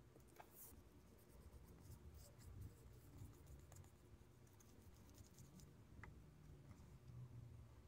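Near silence, with faint rustling and light taps of card and paper being handled and laid on a tabletop.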